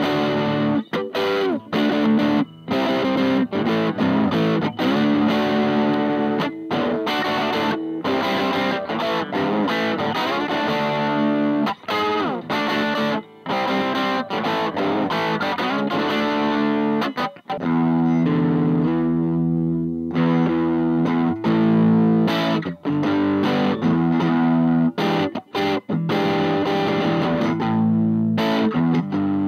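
Electric guitar played through a Little Rebel 2-watt amp kit with its clipping LEDs removed, heard from a Jensen CR8 speaker in an old Sunn cabinet: chords played in short stabs with brief breaks, and one chord held and left to ring for about two seconds a little past halfway.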